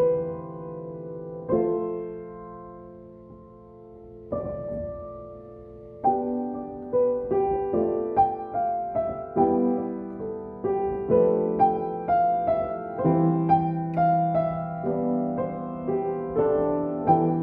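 Solo piano improvisation. Slow held chords ring and fade for the first few seconds, then from about six seconds in a melody of single struck notes moves about twice a second over sustained lower chords.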